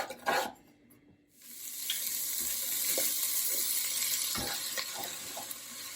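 Onion, garlic and ginger sizzling in ghee in a pot, starting about a second and a half in, with a spoon knocking and scraping against the pot a few times.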